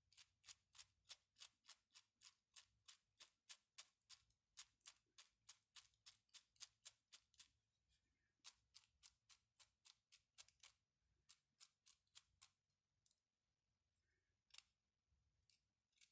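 A 3D-printed plastic mechanical counter clicking as its shaft is turned by hand: runs of sharp clicks at about four a second, with two short pauses, then a few scattered clicks near the end.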